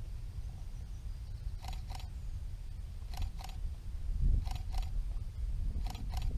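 Camera shutter firing four times at a steady pace, about one and a half seconds apart, each release a quick double click, over a low rumble of wind on the microphone.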